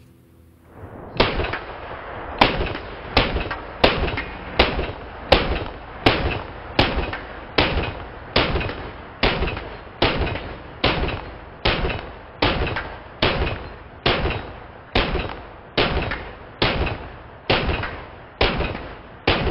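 A Palmetto State Armory AR-15 pistol in 300 AAC Blackout, with an 8.5-inch stainless barrel, firing a long steady string of semi-automatic shots. There are about two dozen shots, roughly one every 0.7 seconds, starting about a second in, and each one rings out briefly after the report.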